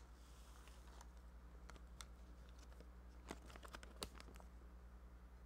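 Near silence over a low steady hum, broken by a few faint clicks and crinkles as a packaged herbal coffee bag is picked up and handled, most of them about three to four seconds in.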